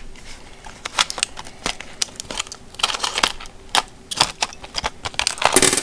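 Hard plastic retail packaging being cut open and pulled apart, with a string of irregular sharp clicks and crackling, busiest about halfway through and near the end.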